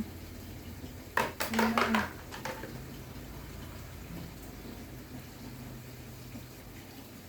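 A quick run of plastic clicks and knocks about a second in, lasting about a second: a push-button spinner toy being handled and worked. Then only faint steady room background.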